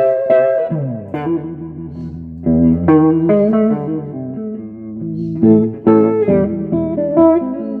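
Electric guitar played through a 1959 Magnatone 260A 35-watt amp: quick repeated chord stabs, a note sliding down about a second in, then a run of changing chords and single notes.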